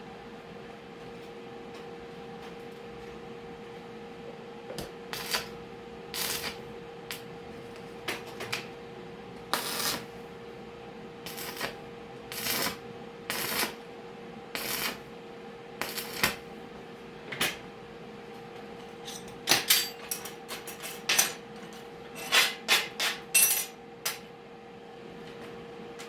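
Irregular short clinks and scrapes of metal parts being handled and worked, coming thicker near the end, over a steady electrical hum.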